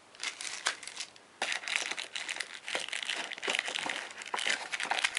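Plastic packaging crinkling and rustling as a small speaker in its wrapping is pulled out of a cardboard box. It starts with a few light crackles, then grows denser and louder from about a second and a half in.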